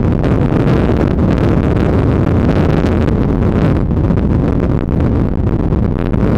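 Steady low roar of jet airliner engines, mixed with wind noise on the microphone.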